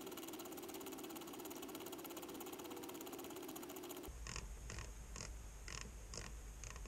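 Rotary encoder knob on a 3D printer's LCD control panel clicking through its detents as a setting is dialled up. First a rapid run of clicks with a steady hum under it, then, about four seconds in, slower single clicks, roughly two a second.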